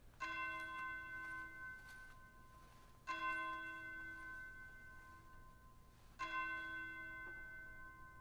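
A bell struck three times, about three seconds apart; each stroke rings out clearly and fades slowly, the lowest tone dying away first.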